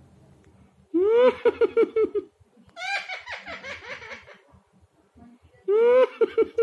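Parrot mimicking human laughter: three bouts of rapid ha-ha-ha pulses, each about a second long.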